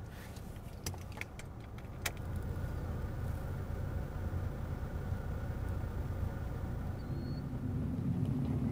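A few sharp clicks, then a car's engine and road noise build into a steady low rumble as it drives off.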